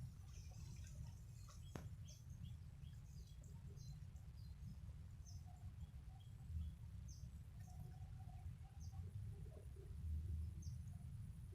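Faint short, high bird chirps repeating every second or so over a steady low rumble, with a single sharp click about two seconds in.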